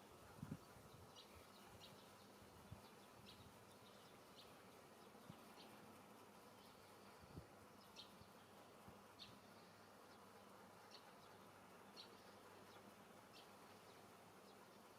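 Near silence, with faint short high chirps about every second and a soft low thump about half a second in.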